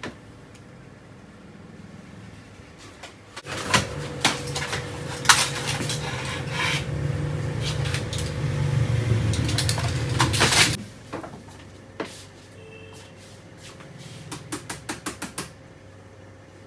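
Knocks and clatter of cardboard medicine boxes being handled and pulled from pharmacy shelves, over a steady hum during the busiest stretch. Near the end comes a quick run of about eight light clicks.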